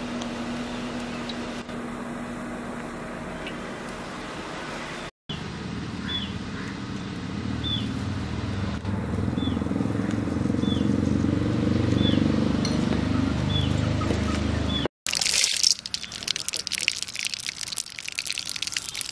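A steady low hum, then a low rumble that grows louder, with short high chirps repeating a little more than once a second. Near the end, loud sizzling and crackling as ingredients are dropped into hot cooking oil for the chutney tempering.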